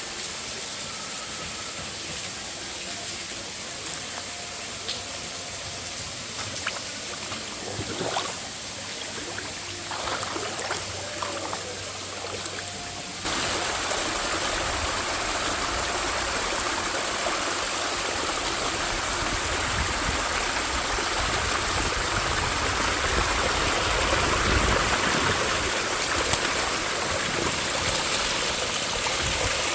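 Mountain stream water running steadily. About thirteen seconds in it turns suddenly louder and fuller.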